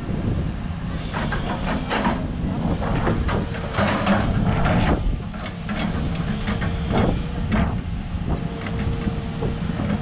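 Backhoe's engine running steadily, with a string of sharp clanks and hissing bursts over it through the middle.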